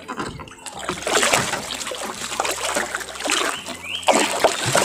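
Large stingray thrashing at the surface beside a wooden boat, water splashing irregularly against the hull, loudest near the end.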